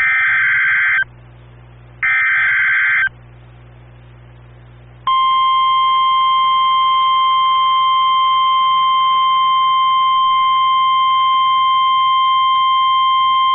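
NOAA Weather Radio emergency alert signalling a tornado warning: two one-second screeching digital data bursts (the SAME alert header) with gaps between them, then from about five seconds in the long, steady, single-pitch warning alarm tone.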